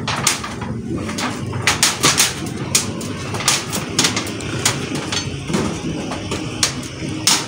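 Hammer striking corrugated iron roofing sheets in a run of sharp metallic knocks, about two to three a second and unevenly spaced, as nails are worked out of the roof.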